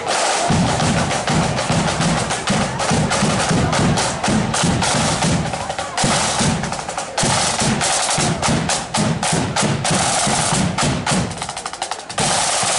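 Marching flute band's drum corps playing a parade beat: snare drums rattling rapid strokes and rolls over a regular bass drum pulse.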